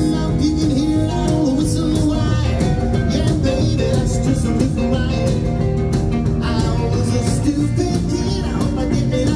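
Live rockabilly band playing loud and steady: electric guitars, an archtop guitar, electric bass and drums.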